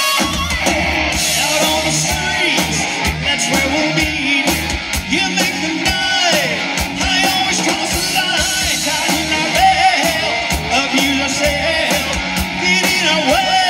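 Live amplified 1980s-style hard rock band playing: electric guitars, bass guitar and a drum kit with a lead singer singing into a microphone.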